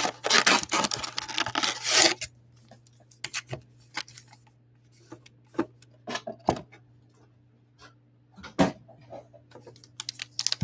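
Cardboard box and wrapped trading-card packs rustling and scraping as the packs are pulled out of the box, loud for about two seconds. After that come scattered light taps and crinkles as the packs are set down in a stack and handled.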